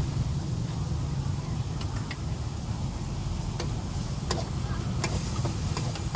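Metal spatula clicking and scraping against a steel wok as vegetables and meat are stir-fried, the clicks coming a few at a time and more often in the second half. A steady low rumble runs underneath.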